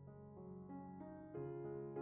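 Soft background piano music, notes struck one after another with chords held under them.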